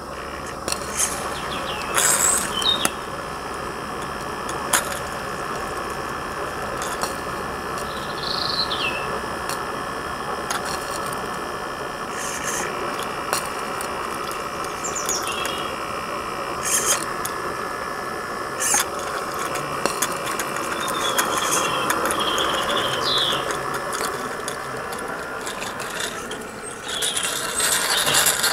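Roundhouse Dylan live steam model locomotive running light on garden railway track, with a steady hiss and scattered sharp clicks. A few short high chirps come through, and the sound grows louder in the last couple of seconds.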